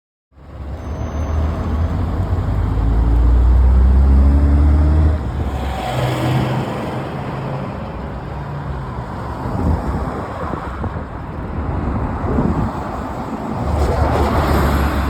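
Road traffic: motor vehicles driving past with engine rumble and tyre hiss. It starts suddenly just after the beginning. One vehicle passes close during the first few seconds, and another passes close near the end.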